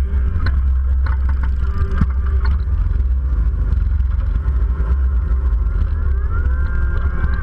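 Motorcycle riding in a group, heard from a camera on the bike: steady engine running under heavy wind rumble on the microphone, the engine note rising near the end as it picks up speed.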